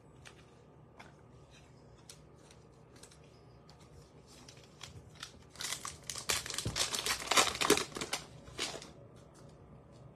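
Baseball card pack wrapper being torn open and crinkled by hand in a loud, dense burst from a little past halfway to near the end. Before it, only faint light ticks and rustles of cards and packs being handled.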